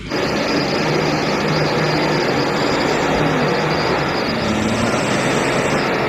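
Heavy Hino truck's diesel engine running steadily as the truck works its way through deep mud, with a constant low hum.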